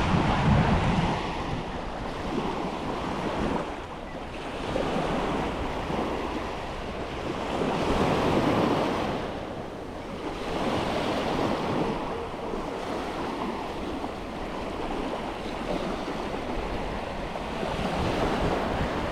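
Waves breaking on a sandy beach, the wash swelling and fading every few seconds, with wind buffeting the microphone near the start.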